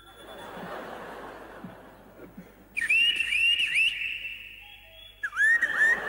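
Pan flute played in two short, loud bursts, about three seconds in and again near the end, each a few high notes with scooping pitch bends. Before and between them, a soft murmur of audience noise.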